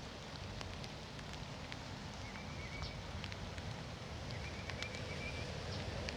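Steady rain falling, with scattered drops ticking sharply close by. A short, high trilling call sounds twice, about two seconds in and again near five seconds.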